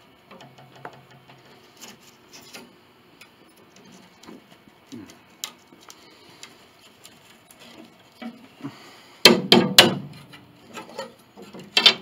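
Glued rosewood molding being pried off a grand piano's case rim: scattered small wooden clicks and ticks, then a few loud, sharp knocks a little past nine seconds in and again near the end.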